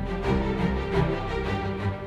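Background music with a steady beat over sustained notes.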